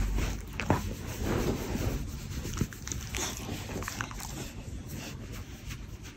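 Small fluffy dog squirming and rubbing against a person on a bed. Close rustling of fur and bedding, with a few sharp clicks.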